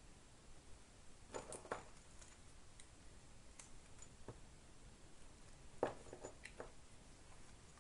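Light clicks and knocks of a Garmin Legend handheld GPS and its data cable being picked up and handled on a tabletop, in two small clusters: one about a second and a half in and one near six seconds.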